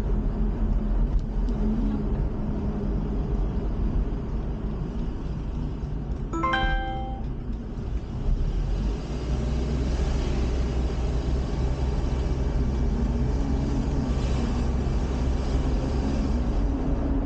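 A van being driven: steady engine and road rumble, with a short higher-pitched sound about six and a half seconds in.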